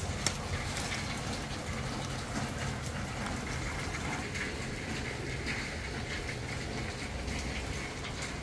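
Steady patter of rain with scattered small drip ticks.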